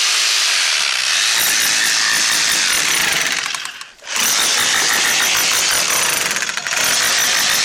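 Makita electric rotary hammer running with a chisel bit, hammering into stony ground. It stops for a moment about four seconds in, then starts again.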